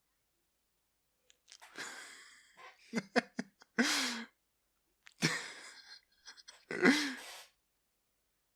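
A person's voice making short nonverbal sounds: about four breathy bursts like coughs or gasps, some ending in a brief voiced sound.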